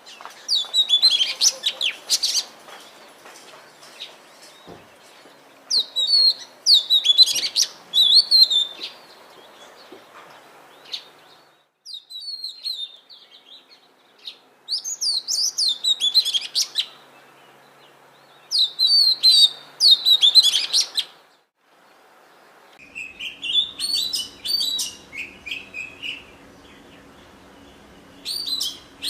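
Oriental magpie-robin singing: about seven bursts of quick, varied whistled phrases, each a second or three long, with short pauses between them.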